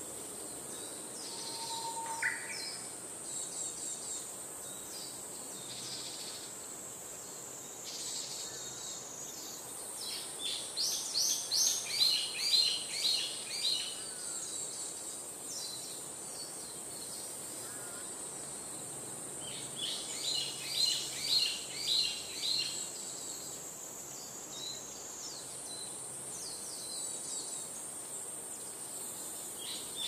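Outdoor nature ambience: small birds chirping over a steady, high insect buzz, with two runs of loud, quickly repeated chirps, one about a third of the way in and one past two thirds.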